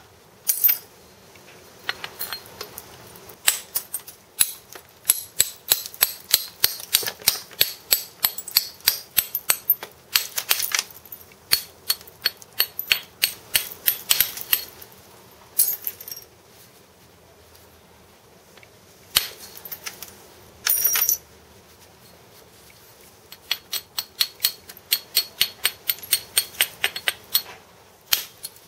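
Flintknapping: sharp strikes of a percussion tool on a spall of Fort Hood flint held in a gloved hand, knocking off flakes to rough out a scraper blank. The blows come in runs of a few a second, with short pauses between runs.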